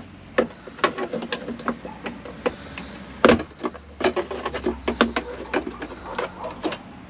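Small metal pry tool working at a Jeep Wrangler JL's rear plastic cargo trim panel: irregular clicks, taps and scrapes of metal on hard plastic, with one louder click about three seconds in.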